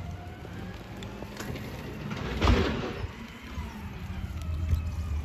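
Low rumble of road traffic, with a short loud burst of noise about two and a half seconds in.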